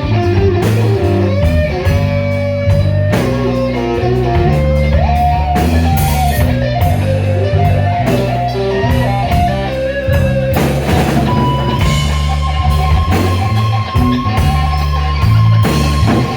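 Live slow blues band: a Stratocaster electric guitar plays a solo of single-note lines over bass guitar and drum kit, holding one long high note from about two-thirds of the way through.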